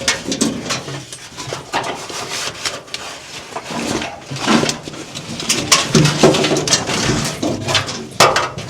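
A car wiring harness being handled and pushed into place, with irregular clicks, knocks and rustling of wire and connectors against the body.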